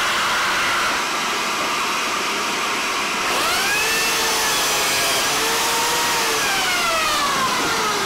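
Biscuit joiner running with a dust-extraction hose attached, a steady loud rushing noise. A little after three seconds in, a motor whine rises quickly in pitch, then slowly falls over the next few seconds.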